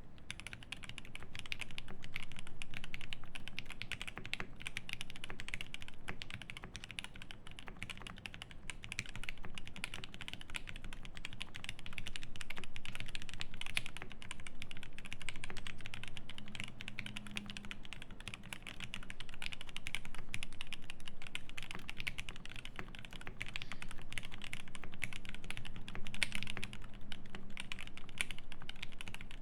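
Fast continuous typing on a Cyberboard R3 mechanical keyboard with lubed Tealios V2 linear switches on an aluminium plate and GMK keycaps: a dense run of keystrokes, with a deeper thock from the stabilized keys now and then, and bursts that grow louder and ease off every few seconds.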